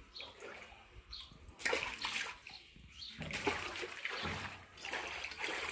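Water splashing and sloshing in a fish tank, in bursts from about a second and a half in, as the water is stirred up to catch small lambari fish.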